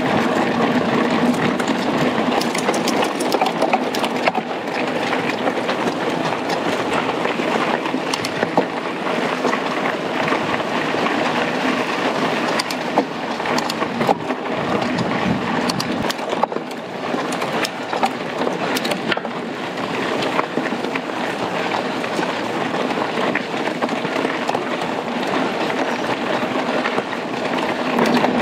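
Mountain bike rolling over rough dirt trail: a steady rush of tyre and ride noise, with frequent small clicks and knocks from the bike rattling over the bumps.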